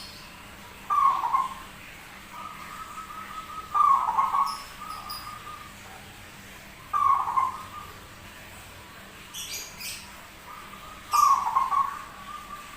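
Zebra dove (perkutut) cooing, with four loud coo phrases about every three to four seconds and a fainter held note between them. Faint high chirps come in twice.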